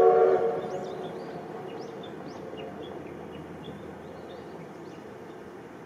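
A train whistle sounds once, a chord of several notes that starts suddenly and fades away over about two seconds. Small birds chirp repeatedly throughout.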